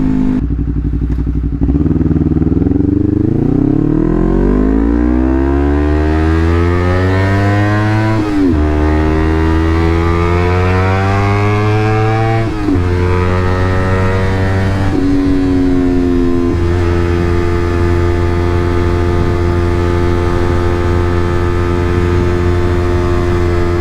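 Honda CBR250RR with a Leovince GP Corsa full-system exhaust pulling up through the gears at part throttle: the exhaust note climbs, drops sharply at each of two upshifts, then settles into a steady cruise.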